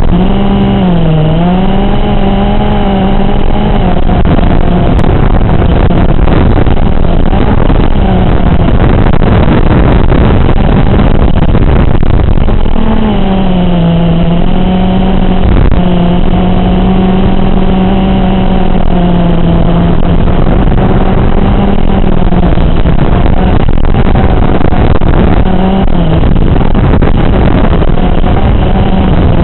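A 5-inch FPV racing quadcopter's brushless motors and propellers whining in flight. The pitch swings up and down with throttle over a steady rush of noise.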